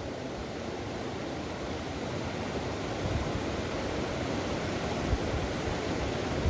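River water rushing in a steady noise, getting slowly louder, with wind buffeting the microphone now and then in the second half.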